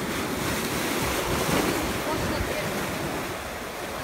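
Small ocean waves surging in and foaming over shoreline rocks, with wind buffeting the microphone. The wash swells to its loudest about a second and a half in, then eases.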